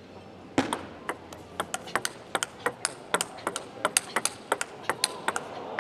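Table tennis rally: the celluloid-type plastic ball clicking sharply off the rubber-faced bats and bouncing on the table in quick alternation, about four hits a second, starting about half a second in.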